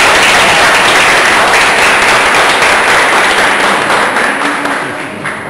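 Audience applauding loudly, dying away over the last second or so.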